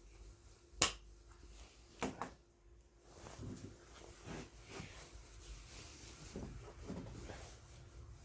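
Small plastic and metal parts being handled on a bench: a sharp click a little under a second in, another about two seconds in, then faint knocking and rustling as the pieces are fitted together.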